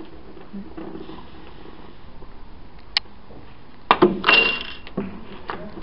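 A sharp click, then about a second later the knock of a cue striking a snooker ball. This is followed at once by a short jingling clatter with a ringing note: coins dropping into a drinking glass. Another light click comes near the end.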